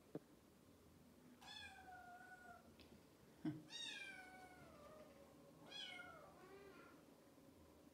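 Siamese cat meowing three times, each meow falling in pitch, with a single sharp thump just before the second meow.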